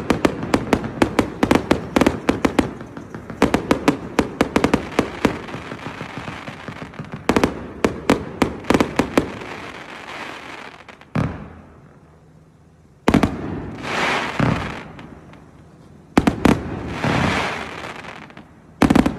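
A 318-shot fireworks cake firing. A rapid volley of sharp launch and burst bangs runs for about ten seconds, then thins to a few single shots, each followed by about a second of hiss as the effect burns out. This is the tail of the cake's firing sequence.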